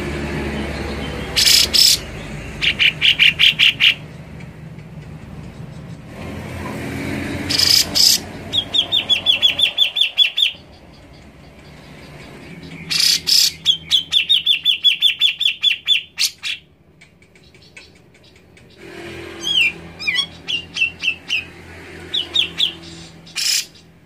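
Grey-cheeked bulbul (cucak jenggot) singing in four phrases. Each starts with a loud harsh note and runs into a rapid string of chattering notes, about eight a second. A low rumble rises and falls in the background.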